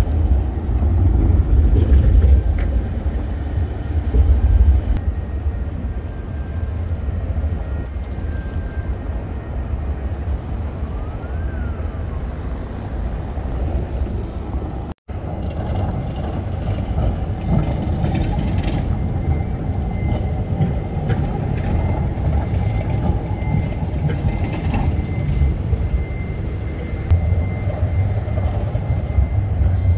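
City street ambience with electric trams on street track: a steady low rumble throughout, and a thin steady high tone from about eighteen seconds on. The sound drops out for a moment about halfway through.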